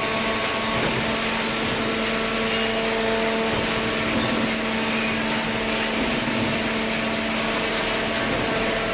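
Vertical hydraulic baler's electric motor and hydraulic pump running steadily, a constant hum with a steady drone over a broad hiss.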